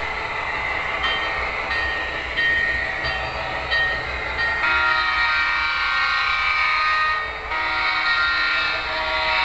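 Factory sound from a Broadway Limited Blueline HO-scale EMD F7 model locomotive: engine sound with short high notes about every two-thirds of a second, then two long horn blasts of several notes at once. The first blast starts about halfway through; the second follows a brief break near the end.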